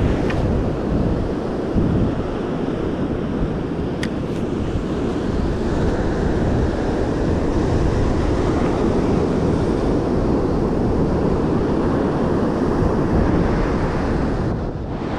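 Ocean surf breaking on a beach, with wind buffeting the microphone: a steady, loud rushing noise. There is a single brief click about four seconds in.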